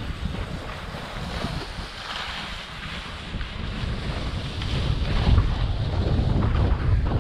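Wind buffeting the microphone of a moving skier's camera, with the hiss of skis sliding over packed snow; the rush gets louder in the second half.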